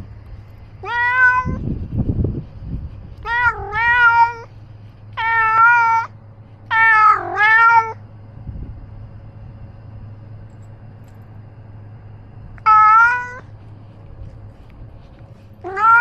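A domestic cat meowing repeatedly, recorded very close by a camera he wears himself. There are about eight meows, several in quick pairs, then a pause of several seconds before two more near the end.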